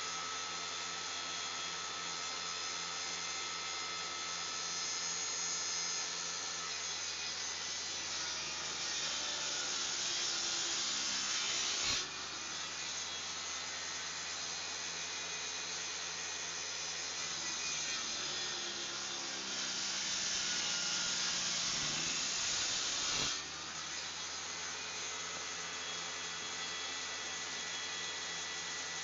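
Shop-built table saw running steadily, cutting along the edge of a wooden board twice to straighten it for an edge joint: each cut grows louder over a few seconds and stops sharply, about 12 seconds in and again about 23 seconds in, leaving the saw running.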